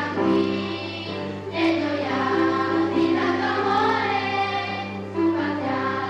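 Children's voices from a middle-school choir singing a children's song in held phrases with piano accompaniment. A steady low hum runs under the recording.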